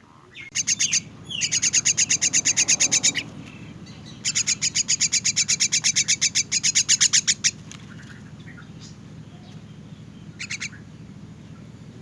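Young myna giving rapid, harsh begging chirps, about nine a second, in three loud bouts and a short final one about ten seconds in, typical of a hungry chick calling to be fed. A low steady hum lies underneath.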